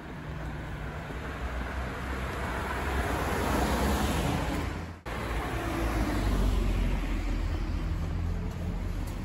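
A car driving past close by on the street, its engine and tyre noise swelling to a peak midway and then fading, with a brief dropout about five seconds in.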